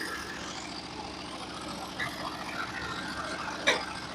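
Sawmill engine running steadily, with one sharp click about three and a half seconds in.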